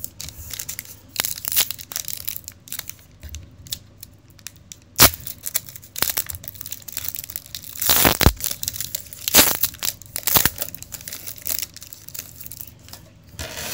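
Foil wrapper of an NBA Hoops trading card pack crinkling and being torn open by hand, in a series of short crackling rips, loudest about eight seconds in, with a sharp snap about five seconds in.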